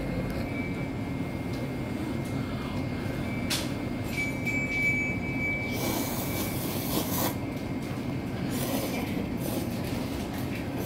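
Instant cup ramen noodles slurped from the bowl in a few short noisy bursts, the longest a little past halfway through, over a steady low hum.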